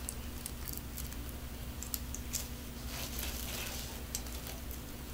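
Plastic deco mesh crinkling and rustling in the hands, with scattered light clicks, as loops of mesh are handled and pushed together on a wire wreath frame.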